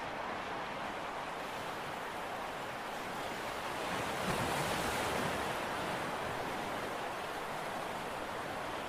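Steady wash of sea water with wind on the microphone, swelling briefly about four seconds in as a wave surges.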